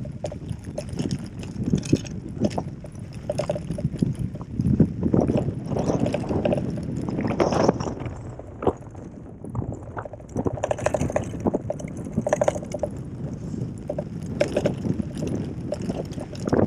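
Gravel bike ridden over bumpy grass and dirt: a continuous low rumble from the tyres, with the bike rattling and knocking unevenly over the bumps.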